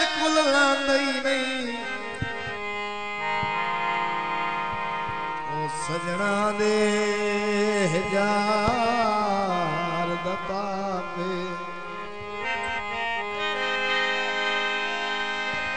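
Instrumental interlude of a live Punjabi folk song: a harmonium holds steady chords over light drum strokes. A wavering melody line rises and falls over it midway.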